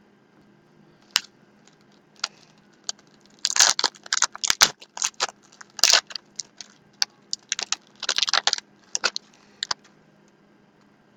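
A trading-card pack wrapper crinkling and tearing open, with cards being handled: a run of sharp crackles and clicks, busiest from about three and a half to nine seconds in.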